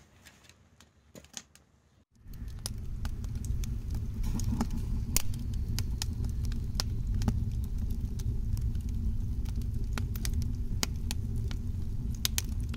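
Wood fire burning in the firebox of a homemade steel-drum sand-battery heater, well established after about half an hour: sharp crackles and pops over a low steady rumble. It starts about two seconds in, after a short near-silent stretch.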